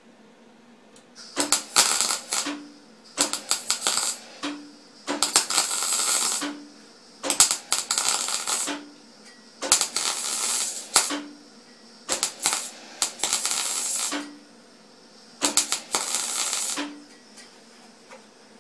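MIG welding arc crackling in seven bursts of about a second each, about half a second apart, as a bead is laid on sheet metal in short stitches. Each burst is followed by a brief hum.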